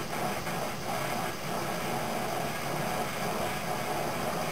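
Small propane torch burning with a steady hiss while it heats a copper frame joint for soldering.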